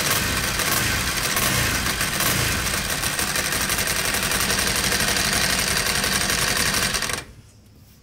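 Ducati Multistrada 1000 DS air-cooled L-twin engine running steadily with its timing-belt covers off and freshly fitted belts turning, with a fast, fine ticking clatter. The sound cuts off abruptly near the end.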